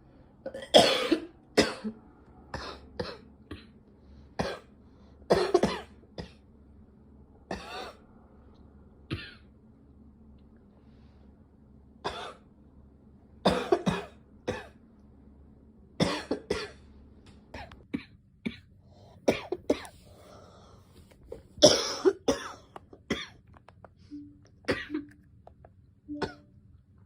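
A girl coughing over and over in bouts of several short coughs, with a pause of a few seconds about midway.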